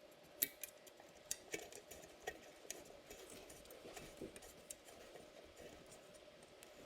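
Faint, irregular clicks and ticks as the bolt and nut holding the ceiling fan's down rod are tightened with a hand tool.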